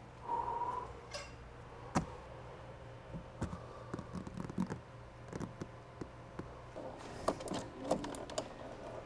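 Light scattered clicks and taps of hands handling cables and a plastic floor panel under a boat's dash console, over a low steady hum.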